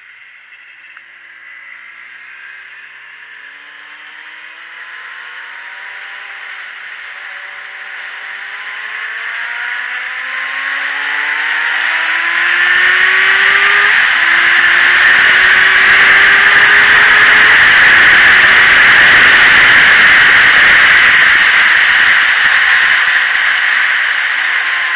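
Sport motorcycle engine accelerating hard through several upshifts, its pitch climbing and dropping back at each gear change. Wind noise on the bike-mounted microphone builds with speed until it is loud and buffeting, drowning the engine for much of the second half, then eases near the end.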